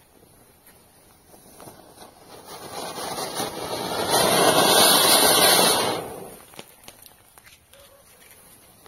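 Anar (flower-pot fountain firework) spraying sparks with a rushing hiss that swells over a few seconds, is loudest for a couple of seconds, then dies away about two-thirds of the way through.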